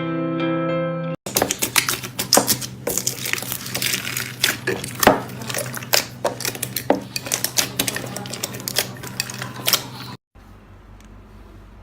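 After a brief stretch of guitar music, slime being squished and pressed by hand, popping with rapid, irregular crackling clicks for about nine seconds before it cuts off abruptly. A faint ticking follows.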